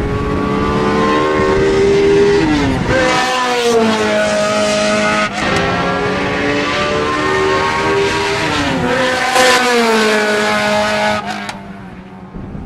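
Race car engines at full throttle on a circuit. The pitch climbs steadily, drops sharply a couple of times as the cars lift and change gear, then climbs again. The sound fades near the end as the cars pull away.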